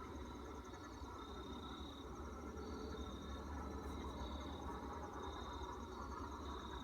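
Insects, most likely crickets, chirping in a steady pulsing chorus. A fast high trill runs on throughout, with shorter chirps repeating roughly once a second, over a low background rumble.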